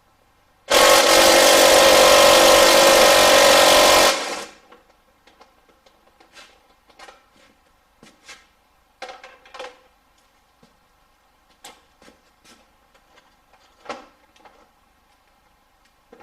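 A power tool runs loud and steady for about three and a half seconds, then stops. Scattered light clicks and knocks from tools and parts being handled follow.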